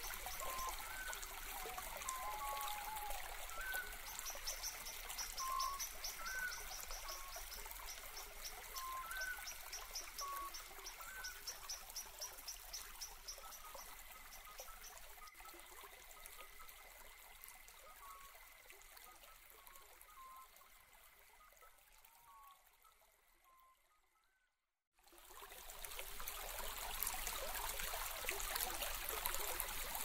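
Steady rushing water, with birds chirping over it in short repeated calls and a rapid high-pitched pulsing trill. The sound fades out about 24 seconds in, is silent for a moment, then fades back in.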